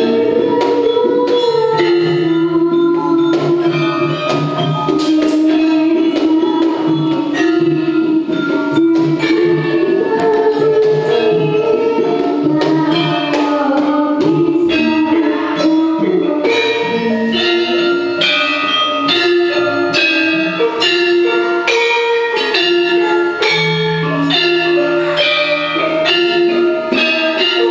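Javanese gamelan ensemble playing continuously: bronze saron metallophones and bonang kettle gongs ringing in a steady rhythm over kendang drums, with a girl singing the vocal line.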